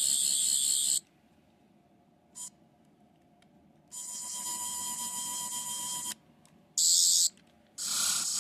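Toy sonic screwdriver (12th Doctor replica) playing its high-pitched electronic sound effects through its small speaker, one press after another: one effect cuts off about a second in, a steadier whirring one runs for about two seconds from around four seconds in, a short sharp burst comes near seven seconds, and another effect starts just before the end.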